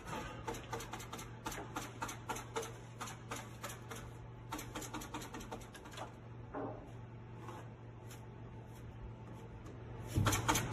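Rapid, irregular crackling and clicking of FlexWrap flashing membrane being handled and pressed into the window sill corner, densest in the first half, over a faint steady low hum.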